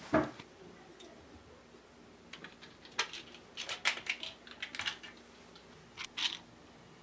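A sharp knock at the start, then bursts of small hard clicks and rattles: pills shaken in a plastic pill bottle as it is handled and opened.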